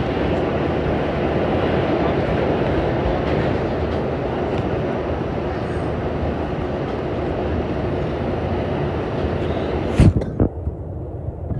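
Subway train running, a steady loud rumble of wheels on rail heard from inside the car. About ten seconds in come a couple of sharp knocks, and the noise then drops and turns muffled.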